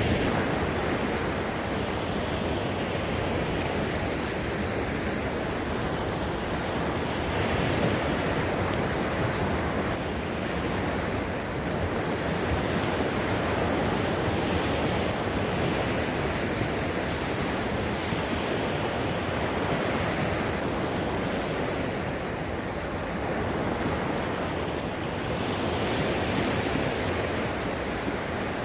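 Ocean surf breaking on a sandy beach: a steady rush of waves that swells and eases every few seconds, with wind on the microphone.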